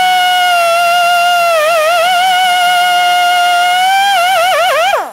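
Air-powered carbide cut-off saw whining at high speed as it cuts through braided stainless steel hose. The pitch dips and wavers about one and a half seconds in and again near the end as the wheel bites into the wire. Then it falls away as the tool is released and spins down.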